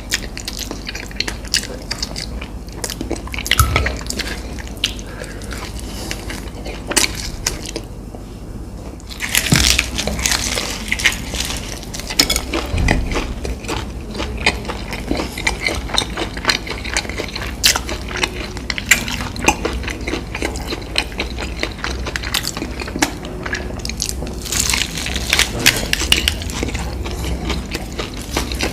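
Close-miked eating: biting, chewing and crunching of fried fast food, a dense run of wet clicks and crackles with a short pause about eight seconds in.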